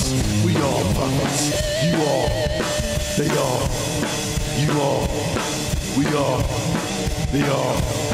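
Instrumental rock music: a drum kit keeping a steady beat under guitar, with one long wavering held note about two seconds in.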